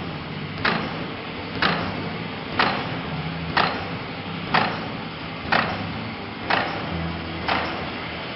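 Pouch-making machine cycling, a sharp clack about once a second as each printed plastic pouch is cut and dropped onto the output stack, over a steady machine hum.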